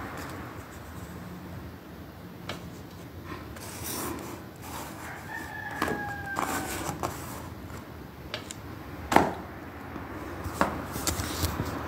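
A rooster crows once about five seconds in, one drawn-out call falling slightly in pitch. Scattered clicks and knocks come before and after it, the loudest about nine seconds in.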